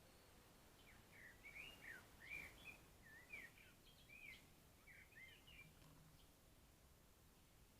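A small songbird chirping faintly, a string of quick notes that swoop up and down, from about a second in until near six seconds, over a faint steady background hiss.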